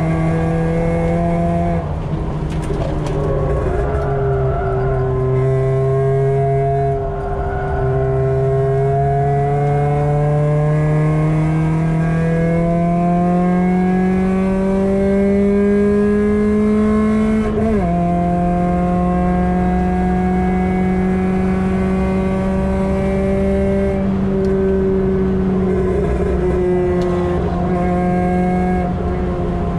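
Ford Puma 1.7 four-cylinder engine with a 4-2-1 manifold and decat exhaust, heard from inside a Mk5 Fiesta's cabin at full throttle on track. The note climbs steadily for about ten seconds, drops sharply at an upshift, then holds nearly level, with two short pitch drops in the first few seconds.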